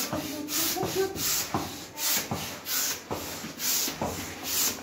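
Hand plunger air pump being worked in quick strokes to inflate a vinyl paddling pool: a regular whoosh of air about twice a second.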